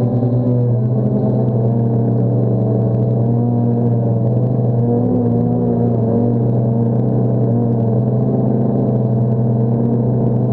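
DJI Phantom quadcopter's motors and propellers humming steadily, several pitches wavering slightly as the motors adjust speed, with low wind rumble on the microphone.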